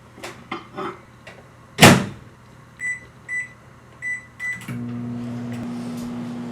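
Microwave oven door shut with a bang, four keypad beeps, then the microwave starts up about two-thirds of the way in and runs with a steady low hum.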